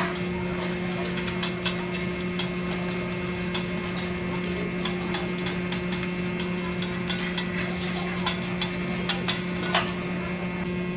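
Metal spatulas clicking and scraping on a hibachi flat-top griddle as fried rice is cooked, with sharp irregular clinks over a steady hum.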